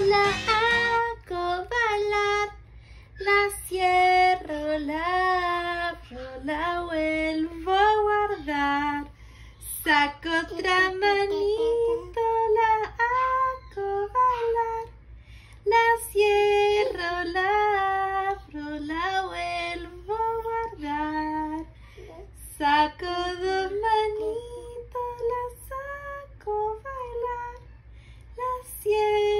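A woman singing a children's song in a high, playful voice, phrase after phrase with short pauses between.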